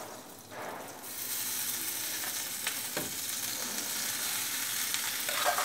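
Hot ghee tempering in a kadai sizzling steadily as the cooked rice and moong dal for pongal are tipped in from the pressure cooker. The sizzle starts about a second in, and a few sharp knocks of the spoon on the pot come later.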